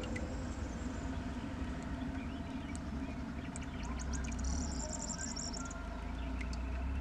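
Outdoor ambience with a steady low rumble; a little past halfway, a high chirping trill lasting over a second, preceded by a few scattered high clicks.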